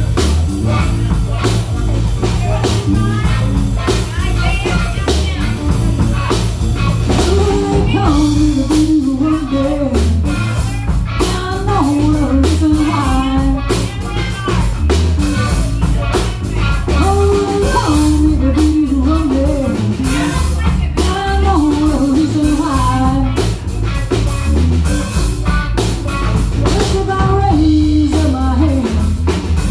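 Live blues band playing: electric guitar, electric bass and drum kit, with a woman singing the lead vocal through a microphone from about seven seconds in.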